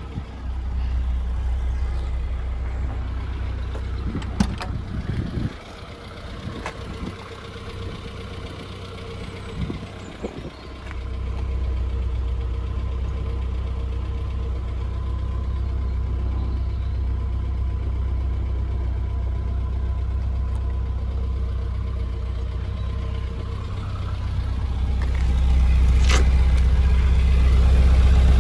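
MG Midget's four-cylinder engine idling steadily. The hum drops away for several seconds about a third of the way in, with a few knocks, then returns and grows louder near the end.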